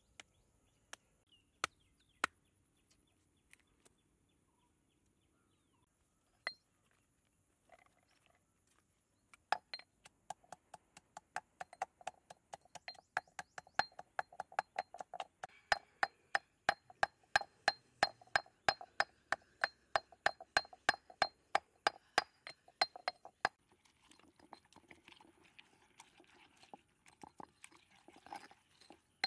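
Stone pestle pounding chillies and salt in a stone mortar: a few scattered knocks at first, then a fast, even run of sharp ringing strikes, about four a second. Near the end it turns to softer mashing and grinding of the wet chilli paste. A steady high insect drone sits underneath.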